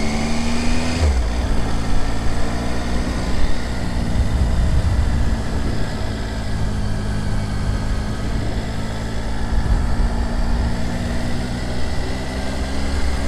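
Triumph Tiger 800's three-cylinder engine under way, its revs rising until a gear change about a second in drops the pitch, then running steadily.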